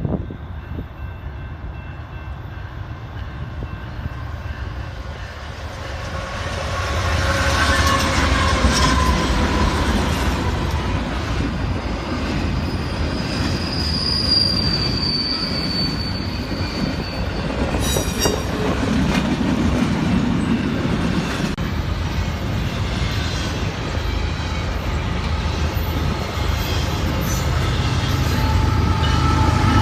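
Freight train passing, its wheels rumbling over the rails, growing louder about six seconds in, with a high wheel squeal partway through.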